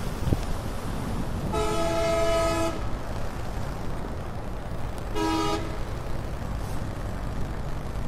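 A vehicle horn sounds twice: a steady blast of about a second, then a shorter one some three seconds later, over a steady background hiss.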